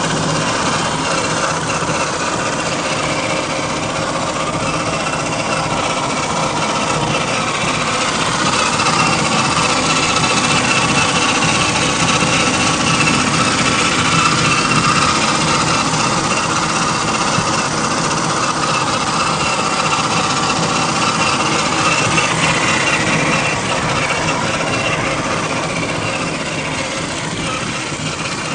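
Electric motor and gear train of a Gmade GS02F Buffalo radio-controlled scale crawler whining steadily as it drives over a pine-needle-covered slope, with a constant hiss under the whine.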